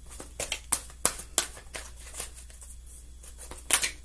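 A deck of tarot cards being handled and shuffled by hand: a run of sharp card snaps and flicks, a short lull, then a louder burst of snaps near the end.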